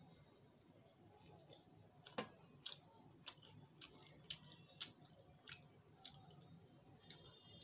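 A person chewing a mouthful of samosa with the mouth closed: quiet, sharp wet mouth clicks at about two a second, starting a couple of seconds in.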